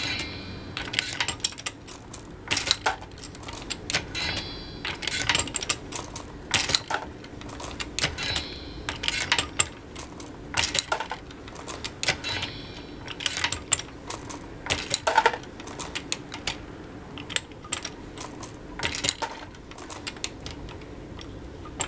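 Lee Loadmaster progressive reloading press being cycled: a steady run of sharp metal clicks and clacks from the press's moving parts and the brass cases, with a brief ringing metallic clink about every four seconds.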